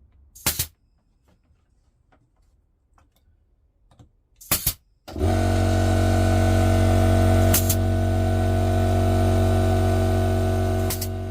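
Two knocks, then a workshop power tool is switched on about five seconds in and runs at a steady speed with a strong hum, until it is switched off near the end and begins to wind down.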